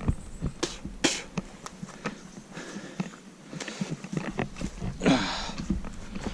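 Footsteps and rustling through undergrowth and debris: irregular crackles and snaps of twigs and vegetation underfoot. About five seconds in, a short grunt-like vocal sound.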